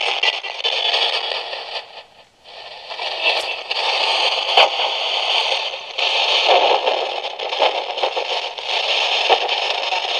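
Static from a Sangean portable radio, fed through a homemade echo (delay) box to a small amplified speaker: a loud hiss broken by short gaps and clicks, with a deep drop-out about two seconds in. The owner suspects the radio's battery may be dead.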